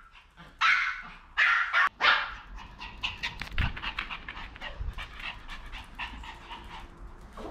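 Maltese dogs barking excitedly, three sharp barks in the first two seconds or so, then a run of quick light clicks of their claws on the hard floor as they move about.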